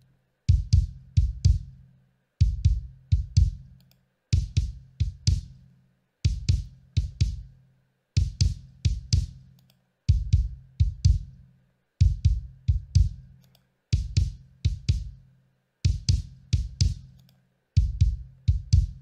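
Kick drum track looping on its own: a pattern of three or four hits repeating about every two seconds, each hit a deep boom with a sharp beater click. The low end is shaped by a Pultec-style tube EQ plugin, boosted and tightened around 60 Hz for more bottom end and thump without boominess.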